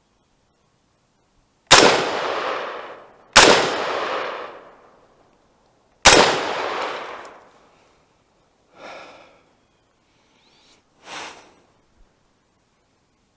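Three rifle shots from a 20-inch AR-15 build, fired at an uneven pace about a second and a half, then two and a half seconds apart, each followed by a long echoing decay. Two much fainter, softer sounds follow later.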